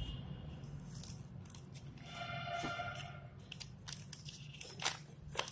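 Plastic wrapper and paper packaging being handled and torn open, with crinkling rustle and a couple of sharp clicks near the end.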